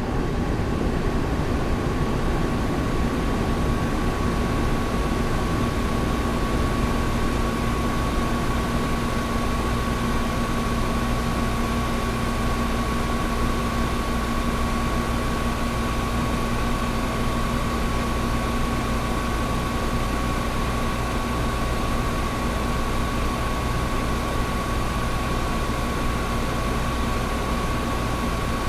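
Old window air conditioner running: a steady rush of air and hum, with a thin high tone and a lower hum held over it.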